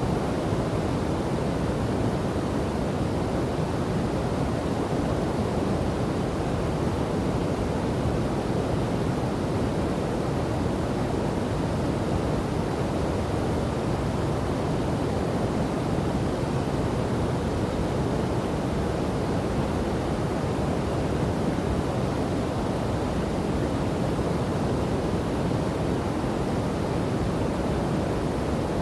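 River and waterfall: a steady, full rush of falling and flowing water, even and unbroken, deepest in the low and middle range.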